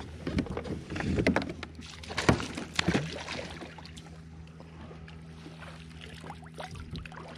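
Knocks and splashing on and around a fishing kayak as a hooked bass is fought. A burst of sharp strikes comes in the first three seconds, loudest about two seconds in, then it settles to a steady low hum.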